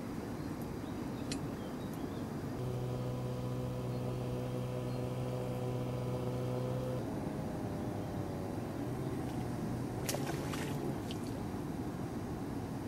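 Steady engine hum for a few seconds in the middle, ending abruptly, then a fainter wavering hum. About ten seconds in comes a short burst of sharp splash-like sounds as the hooked fish is played toward the landing net.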